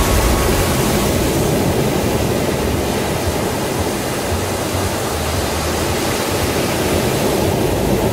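Ocean surf: waves breaking and washing up a sandy beach, a steady rushing noise.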